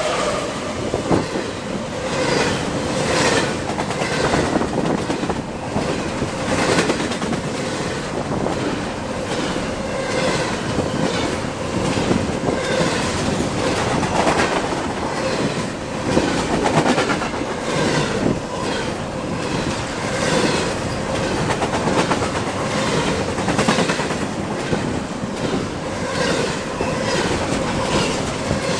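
CSX intermodal freight train passing close by at speed: a steady rumble of cars with wheels clicking over the rail in a repeating clickety-clack, running over freshly replaced ties and bedding.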